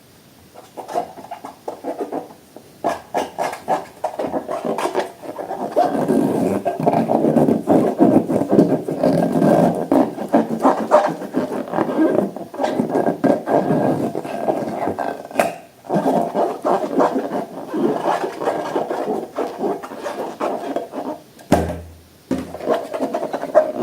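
Close-miked slime being worked by hand: dense rubbing and scraping with many small clicks, and a short low thump near the end.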